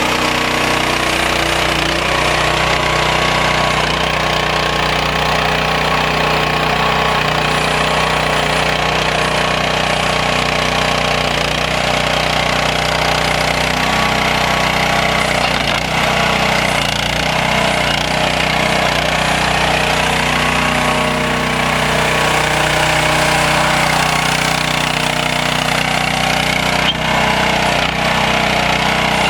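Small engine of an SD Lanch ME15 mini excavator running steadily at an even speed.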